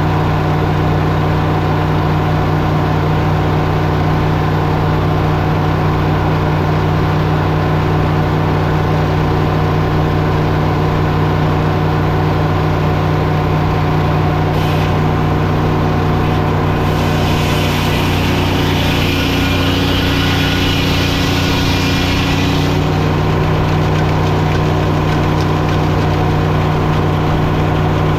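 Sawmill's engine running steadily at constant speed. For about six seconds past the middle, a rushing hiss is added on top.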